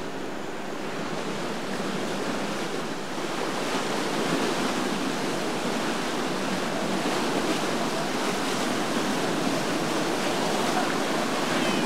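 Rough, churning canal water and a boat's wake rushing and breaking, with wind on the microphone; a steady noise that grows a little louder about three seconds in.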